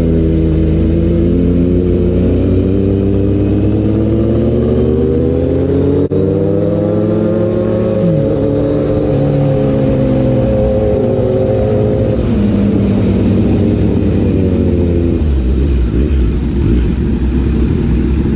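Kawasaki inline-four superbike engine with an aftermarket exhaust, running under way. Its pitch climbs over the first several seconds, holds, then eases off after about twelve seconds.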